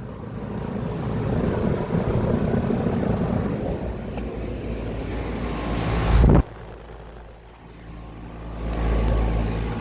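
An outdoor air conditioner/heat pump condensing unit that has just turned on, running with a steady rushing fan noise and low hum. The noise swells to its loudest and cuts off suddenly about six seconds in, followed by a quieter low rumble that builds again near the end.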